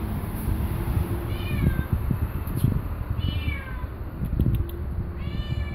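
Domestic cat meowing three times, about two seconds apart, each meow sliding down in pitch.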